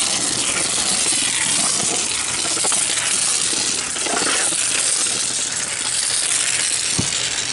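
Foam adhesive dispensing guns hissing steadily as they lay beads of roofing foam adhesive on the RV roof deck; the hiss cuts off at the end, with a short knock just before.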